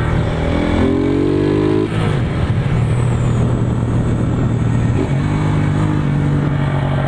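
A 150 cc motorcycle's single-cylinder engine running through a Roncar ML Competition aftermarket exhaust with a deep note. The engine speed rises about a second in, drops near two seconds and steps up again around five seconds in. The rider says the exhaust is leaking audibly at the joint where it meets the engine.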